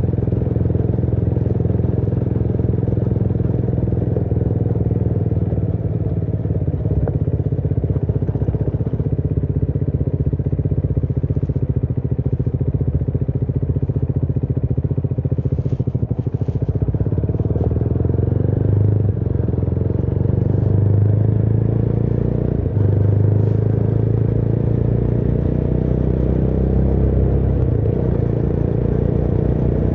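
Motorcycle engine running steadily while riding, heard from the rider's seat. It grows louder for a few seconds about two-thirds of the way through.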